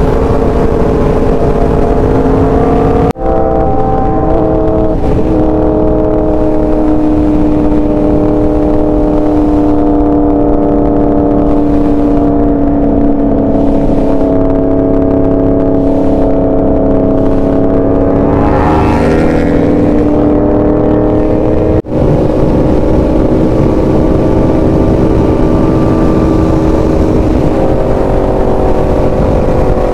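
Sport motorcycle engine running at a steady, slowly drifting speed, loud and continuous, broken by two abrupt cuts about 3 and 22 seconds in. A little before the second cut, a higher engine note rises and falls.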